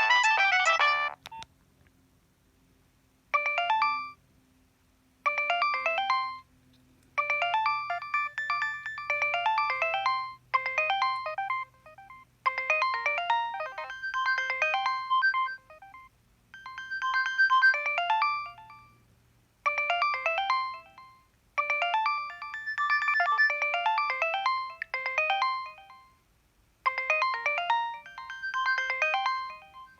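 Nokia 3120 mobile phone ringtones: one tune cuts off about a second in, and after a pause of about two seconds a new preloaded ringtone starts. The new one plays short melodic phrases of bright electronic notes, separated by brief pauses.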